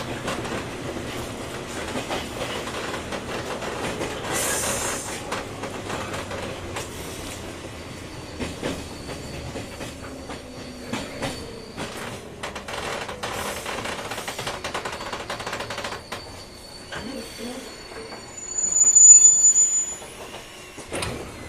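Running noise of a 201 series electric train heard from inside a motor car, with knocks over rail joints and a faint low motor hum. About three-quarters of the way through, a loud, sharp, high-pitched wheel squeal rises and cuts off after a second or two.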